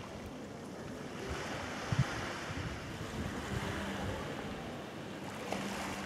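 Gentle sea surf washing below, with wind gusting on the microphone. A short low thump comes about two seconds in.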